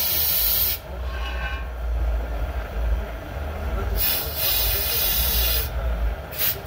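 Long-wand weed-burner torch flame with a steady low rumble, its hiss blasting on and off: it cuts off under a second in, comes back at about four seconds for under two seconds, then gives short bursts near the end. It is being used to burn out carbon buildup in a two-stroke motorized-bike exhaust.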